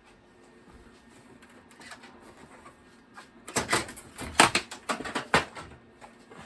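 A quick irregular run of knocks and clatter lasting about two seconds, starting about three and a half seconds in, as the old Macintosh IIfx computer case is handled.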